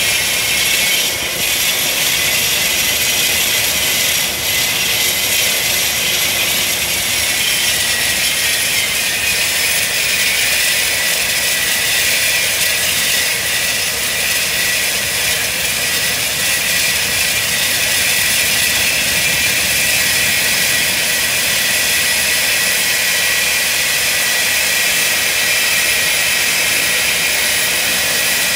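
Lancair's 750 hp turboprop engine running on the ground, its four-bladed propeller turning: a steady turbine whine with high tones over propeller and exhaust noise. The pitch drops slightly about eight seconds in, then holds steady.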